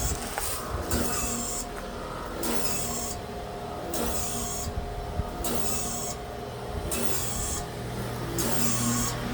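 Carrier 25HPB630A300 heat pump running with a steady low hum and a hiss that swells and fades about every second and a half. It is the abnormal noise the unit makes in below-freezing weather, which the owner reports gets longer and louder the colder it gets and expects Carrier to replace the unit over.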